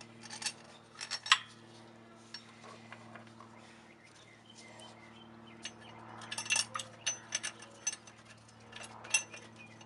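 Light metallic clinks and taps of bolts and a metal plate being handled and started by hand in an engine bay. They come scattered: a couple early, then a busier cluster just past the middle, all over a steady low hum.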